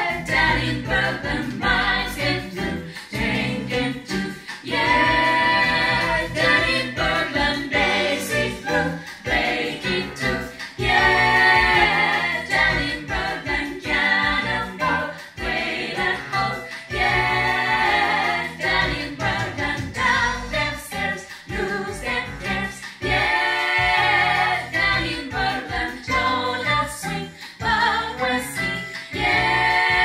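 Small jazz vocal group rehearsing, singing in close harmony in phrases of a few seconds broken by short breaths.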